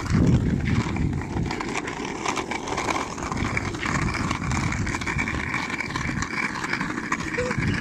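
Small plastic wheels of a ride-on flicker swing car rolling over rough tarmac: a steady, gritty rumble.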